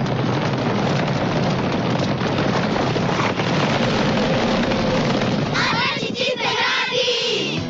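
A loud, dense, noisy din for about five seconds, then a group of children shouting and cheering in high voices near the end.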